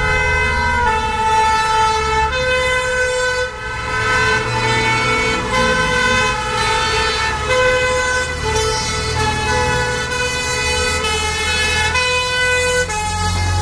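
Two-tone sirens of passing fire-service vehicles, each sounding two alternating notes, over the low rumble of truck engines.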